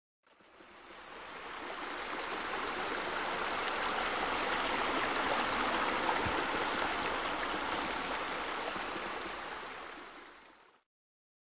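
Steady running, splashing water sound. It fades in just after the start and fades out near the end before cutting off.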